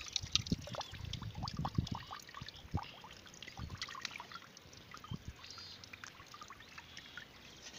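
Irregular wet clicks, squelches and trickling water from mud-covered snakehead fish in a wicker basket.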